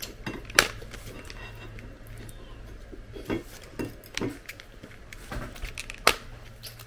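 Small clicks, taps and scrapes of long fingernails and fingers working at a slim cardboard mascara box to open its flap, scattered irregularly over a low steady hum.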